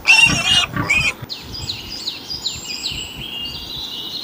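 A pig squeals twice in the first second. Then birds chirp with a run of quick, high, falling notes that settle into a held high note.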